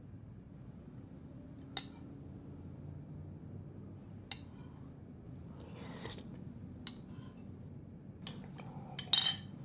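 A metal fork clinking against a plate during a meal: single short clinks every second or two, with a louder, longer scrape of cutlery on the plate near the end.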